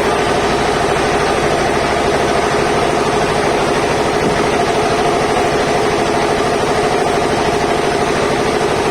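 Sawmill band saw machinery running steadily: a loud, constant engine-like drone that holds the same pitch throughout.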